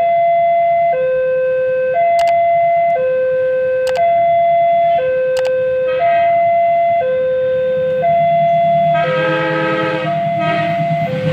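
Railway level-crossing warning alarm sounding two alternating tones, high and low, each held about a second, over a steady low hum. From about nine seconds in, an approaching locomotive sounds its multi-note horn, growing louder near the end.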